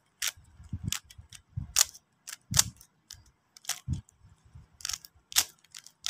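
Plastic Rubik's cube being turned quickly by hand: an irregular run of sharp clicks and clacks as the layers snap round, with some duller knocks.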